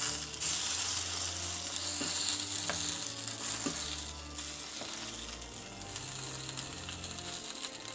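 Mac and cheese patty frying in a pan, a steady sizzle, with a few light clicks about two to four seconds in.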